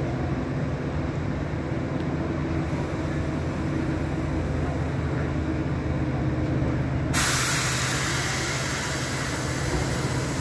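Southeastern Class 395 Javelin electric train standing at the platform, its equipment giving a steady low hum. About seven seconds in, a loud hiss of released air starts suddenly and keeps going.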